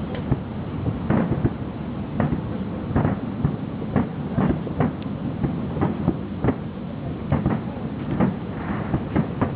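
Fireworks going off: an irregular run of sharp bangs from bursting shells, about one or two a second, over a constant low rumble.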